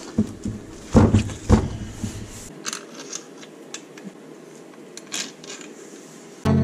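Metal clunks and light clicks as the Suzuki SV650 aluminium engine crankcase is gripped, turned and set on the workbench, the loudest knocks about a second in, lighter clicks after. Music starts near the end.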